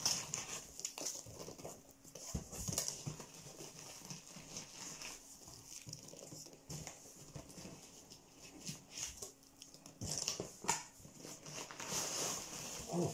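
Hands rummaging in a cardboard shipping box of beer bottles: cardboard and packing material rustling and scraping, with scattered small knocks that cluster near the end.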